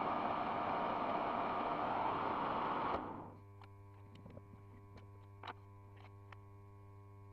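A lathe running with a broad whirring hiss, switched off about three seconds in and winding down quickly. A steady electrical hum and a few light clicks are left.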